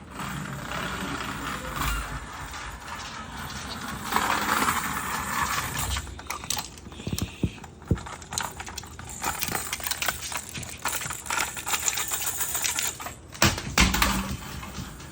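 Continuous clattering and rattling of small hard objects, full of sharp clicks, with a few heavier knocks near the end.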